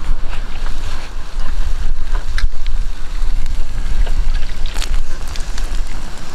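Wind buffeting the microphone: a heavy, gusting low rumble, with a few faint scattered clicks over it.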